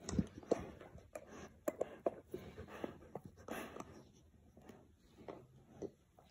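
Dogs gnawing and chewing on a bone, a run of irregular crunches, clicks and scratchy scraping.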